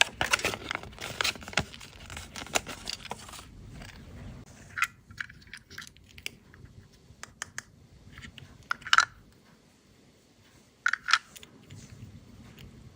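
A Kinder Surprise egg being unwrapped. The foil wrapper crinkles and tears densely for about three seconds, then come scattered sharp clicks and light taps.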